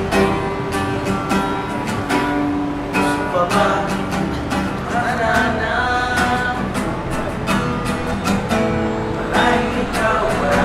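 Acoustic guitar music: strummed chords at a steady pace with a melody over them.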